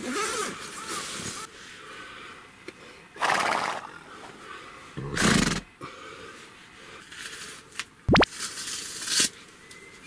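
A short horse-like whinny at the start, then several loud puffs of breath and rustling of a sleeping bag, with a quick sharp falling tone a little after eight seconds.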